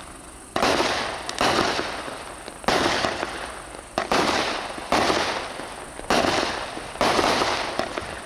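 A Fisherman '3rd Down' 200-gram nine-shot fireworks cake firing. Six sharp shots come about one to two seconds apart, and each trails off in a fading noisy tail over a second or so.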